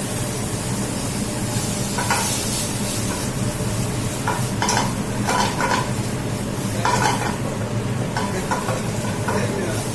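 Food frying in hot oil, a steady sizzle, with stirring and the odd scrape or clink of a utensil in the pan.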